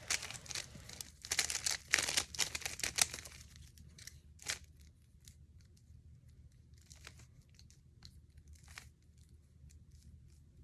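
Plastic Rubik's cube being turned by hand: a quick run of clicking, rattling twists for about three seconds, then a few scattered single clicks.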